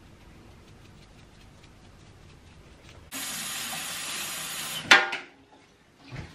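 Faint room noise, then a steady hiss that starts abruptly about three seconds in and lasts about two seconds, ending in one loud, sharp clatter with a brief ringing tone.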